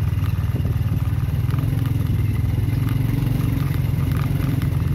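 Small motorcycle engine running at low speed over a rough gravel track. Short clatters and knocks come from stones and the bike rattling over the bumps.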